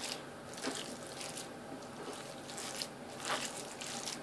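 Diced raw turkey fillet being mixed and pressed by hand with salt and seasoning: soft, irregular wet squishing with a few slightly louder strokes.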